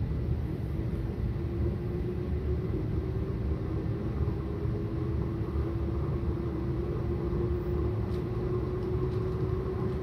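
Antique Westinghouse Mini Sidewinder ceiling fan running on a solid-state speed control, a steady motor hum whose pitch creeps slowly upward, over the continuous low rumble of a large space heater.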